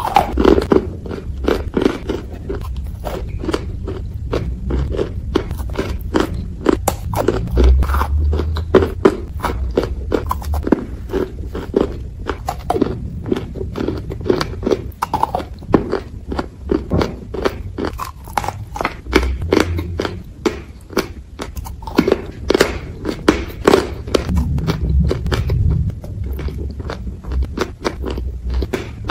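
Biting and chewing of cookies coated in chalk and clay: a rapid, continuous run of sharp crunches with low chewing thumps underneath.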